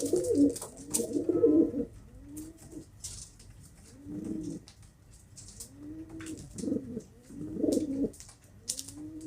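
Domestic pigeons cooing: repeated low, arching coos, several overlapping in the first two seconds and returning in clusters later, with faint light clicks and rustles between them.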